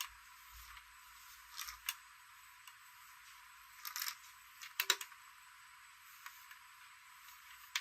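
Scattered sharp clicks and light taps of small hard objects being handled. The loudest cluster comes about five seconds in, over a faint steady hiss.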